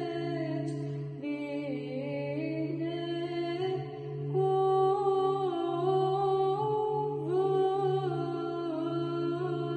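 A woman singing Byzantine chant, a slow melodic line moving in steps and glides over a steady low drone (the ison).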